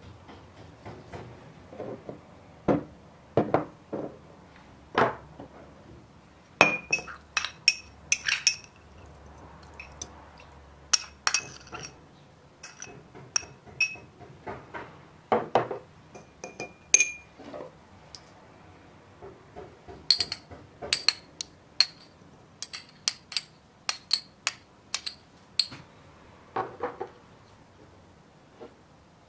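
Hard objects clinking and knocking irregularly throughout, many strikes ringing briefly.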